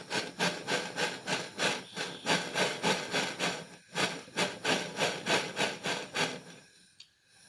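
Quick rhythmic rubbing strokes, about three to four a second, on a small metal part being tin-soldered, fading out near the end.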